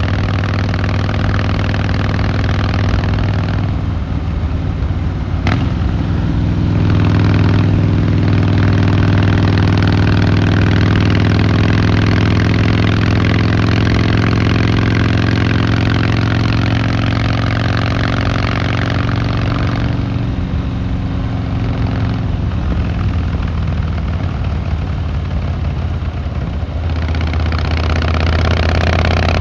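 Harley-Davidson Fat Boy Lo V-twin engine and exhaust under way on the road. The note eases off and drops about four seconds in, picks up again strongly a few seconds later and holds, then falls away again about twenty seconds in before the throttle comes back on near the end. There is a single sharp click about five seconds in.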